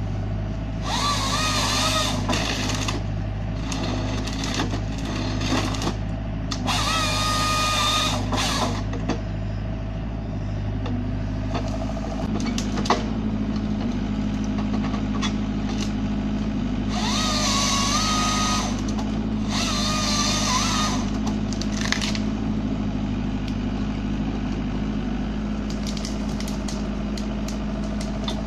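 Hyundai Robex 55-7A excavator's diesel engine running steadily at about 1500 rpm, with a high hydraulic whine that rises in four bursts of one to two seconds as the R3EX harvesting head works under pressure, feeding, delimbing and cutting stems.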